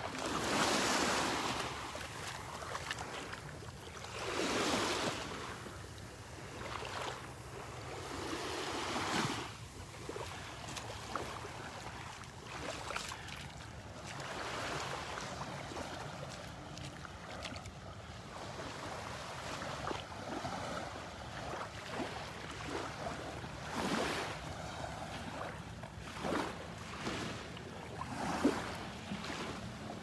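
Small Gulf of Mexico waves washing gently on the beach, with wind buffeting the microphone in swells every few seconds.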